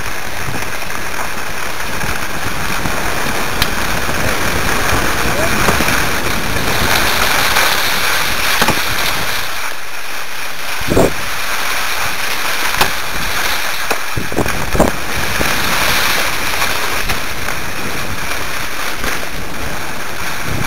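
Steady rushing noise of skis sliding over groomed snow, with wind on the microphone, as the person filming skis along. A few short knocks come about halfway through.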